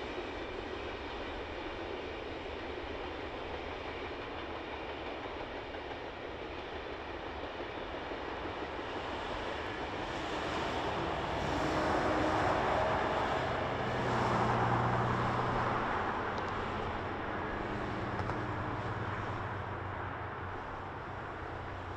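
Heritage diesel locomotives hauling a passenger train: the engines run with a steady hum over wheel and rail noise, louder in the middle as the train comes closer, then easing.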